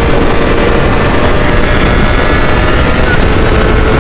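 A Honda 600 cc inline-four motorcycle engine on its stock exhaust, running at fairly steady revs while riding. Heavy wind rumble on the rider's microphone lies under it.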